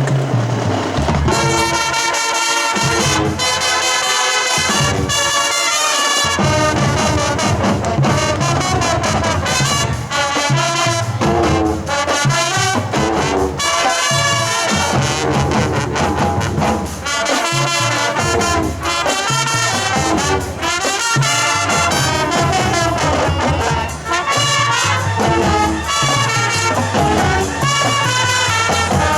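High school marching band playing a rock arrangement, brass section carrying the tune over a drumline beat, coming in loud at the start.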